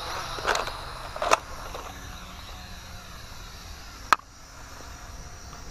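A few sharp snaps from Nerf foam-dart blasters being fired: two in the first second and a half and one about four seconds in, over a low steady background noise.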